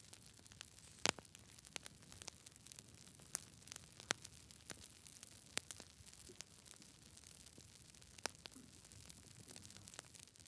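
Campfire wood burning with irregular sharp crackles and pops over a soft hiss, the loudest pop about a second in.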